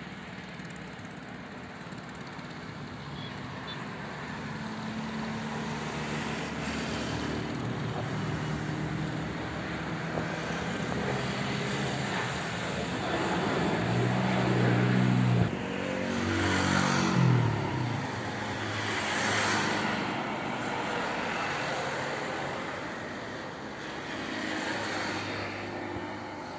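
Boeing 737-800 airliner's CFM56-7B jet engines at takeoff thrust: a broad rushing noise that grows over the first half and stays loud as the aircraft climbs away. Road traffic passing close by, with engine tones, is loudest just past the middle.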